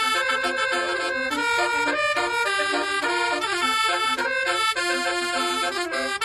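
Bus telolet horn of the basuri type, a multi-tone musical air horn, playing a continuous melody of quickly changing notes.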